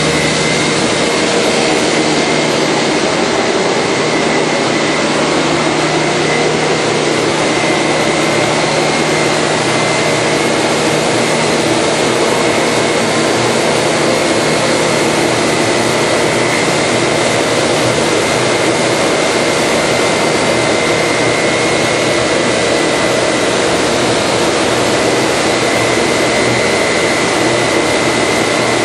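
Combination jointer-thicknesser woodworking machine running steadily: a loud, even machine noise with a high steady whine.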